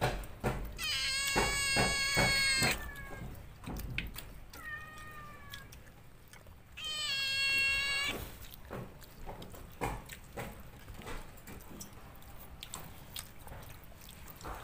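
A cat meowing: two long, drawn-out meows, the first about a second in and the second about seven seconds in, with a fainter meow between them. Light clicks and knocks of eating at a table run underneath.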